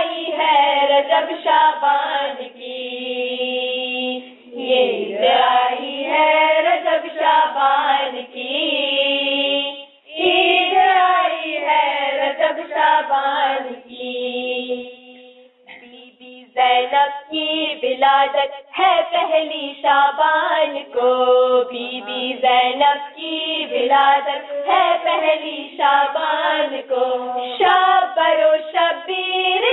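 Girls' voices singing a devotional Urdu manqabat in long, ornamented held notes, with brief breaks about ten and sixteen seconds in.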